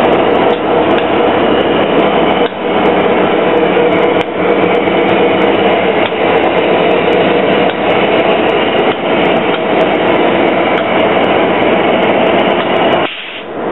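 Amtrak diesel locomotive's engine idling, a loud steady drone that drops out briefly just before the end.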